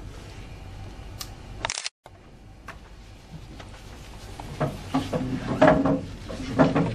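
Scattered camera shutter clicks over paper and folder handling as documents are signed and exchanged, the handling noise growing louder near the end.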